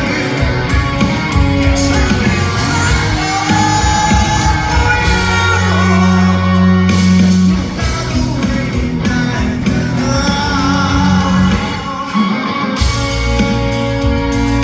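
Live rock band playing, with a male lead singer over electric guitar, bass and drums.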